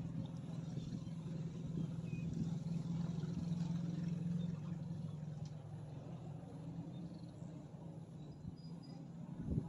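A motor engine runs steadily, swelling and then fading away like a vehicle passing. A dull thump comes near the end.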